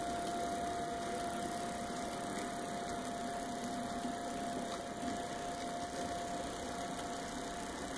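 An O scale model of a Reading class I8 2-8-0 steam locomotive running along two-rail track: a steady whir of its motor and gearing with the wheels rolling on the rails, over a constant thin whine.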